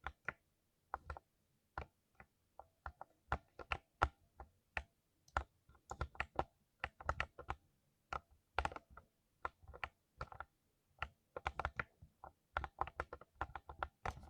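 Typing on a 60% mechanical keyboard with silver speed linear switches: sharp keystroke clicks in uneven bursts, with short pauses between runs.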